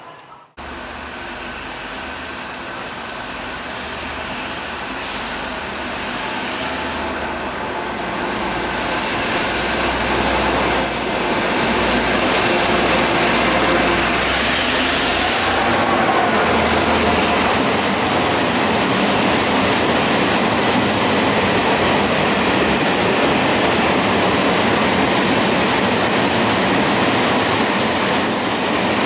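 Taiwan Railway train running past on the track, its rumble building over the first dozen seconds and then holding steady.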